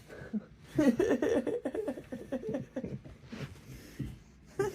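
A person laughing, a quick run of laughs starting about a second in and tapering off into softer chuckles.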